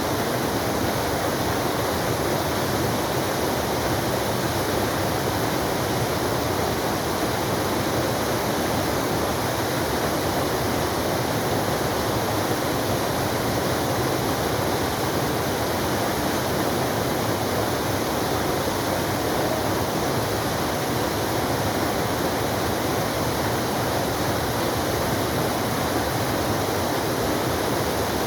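Forest waterfall: water falling and splashing in a steady, unbroken rush.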